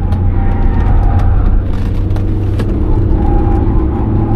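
Alfa Romeo 156's 1.9 JTD four-cylinder turbodiesel engine running hard under track driving, with tyre and road noise, heard from inside the cabin as a steady loud drone.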